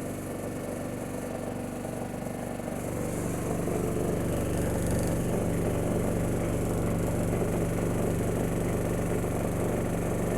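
Miele household appliance running with a steady, humming machine noise that grows louder about three to four seconds in; this is the unwanted noise the appliance is making.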